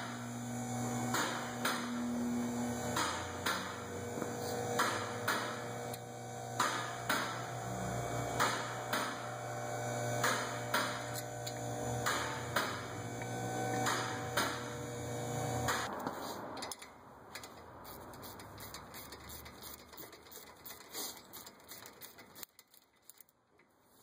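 Steady electrical hum with a light click every second or so. About sixteen seconds in the hum stops, and a ratchet wrench clicks in quicker runs as it turns in a brake caliper bolt.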